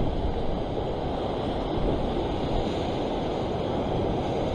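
Ocean surf washing against the shore with wind rumbling on the microphone, a steady noise without distinct strokes.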